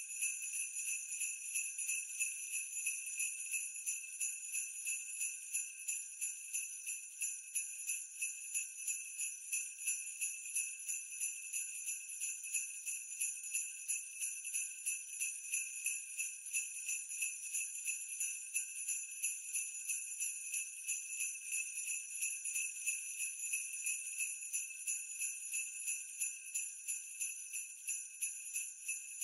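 Sleigh bells jingling in a steady, even rhythm, ringing bright and high with no other instruments under them.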